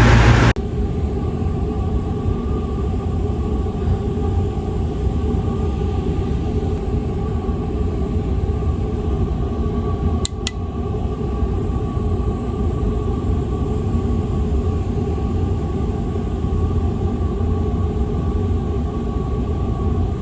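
Air conditioner running with a steady low hum and rumble and a faint whine on top. It drops in level about half a second in, then holds steady, with two brief clicks about ten seconds in.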